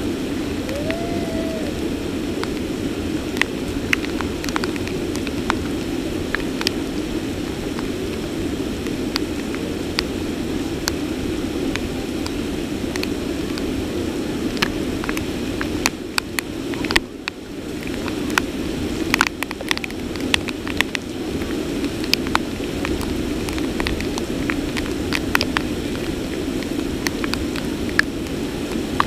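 Heavy rain falling steadily, with sharp ticks of drops striking close by. The rain sound briefly dips about seventeen seconds in.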